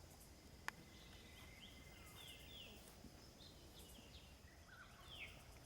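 A single sharp click under a second in: a golf iron striking the ball. It is followed by faint bird chirps, short falling notes, over a quiet outdoor background.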